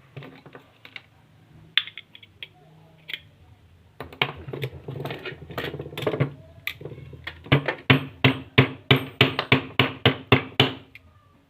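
Hammer tapping, scattered and irregular at first, then busier, then settling into a steady run of about three sharp strikes a second that stops near the end.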